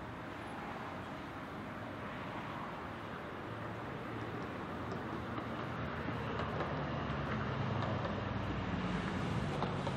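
Street traffic with cars and a tram passing, a steady rumble that grows louder through the second half as the tram comes by.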